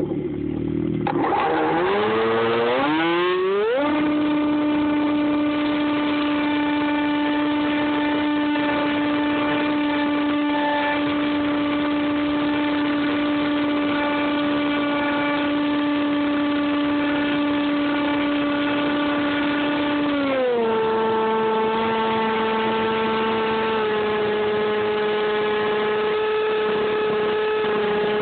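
Dynam Hawk Sky's electric motor and propeller, heard from on board as a loud whine. The whine rises in pitch as the throttle opens about one to four seconds in, holds steady at high power, drops to a lower steady pitch about twenty seconds in as the throttle is eased back, and dips briefly near the end.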